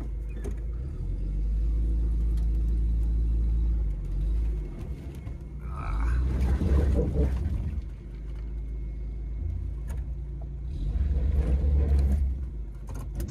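1994 Geo Tracker's four-cylinder engine revving in four-wheel low as it tries to climb a steep, loose-rock ledge. Two louder surges of throttle, about six and eleven seconds in, come with the tyres scrabbling on the rock.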